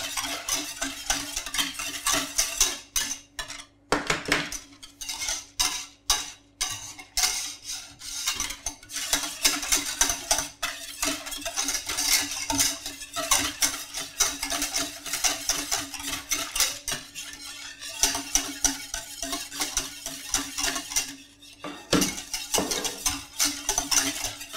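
Wire whisk beating a liquid milk-and-cream ice cream base around a stainless steel saucepan: a fast, steady clatter of metal on metal, with a few brief pauses.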